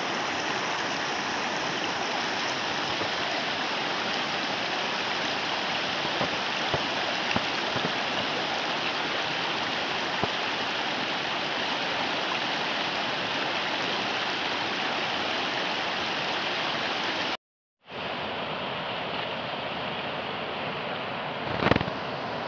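Fast, shallow river rushing over stones: a steady, full hiss of water. It drops out for a moment about three-quarters of the way through, then comes back, with a brief louder swell near the end.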